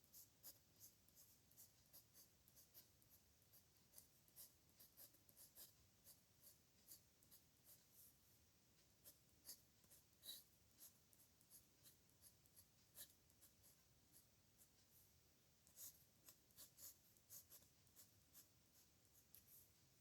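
Pen scratching across paper in handwritten strokes: faint, quick, irregular scratches and ticks, several a second, with brief pauses between strokes.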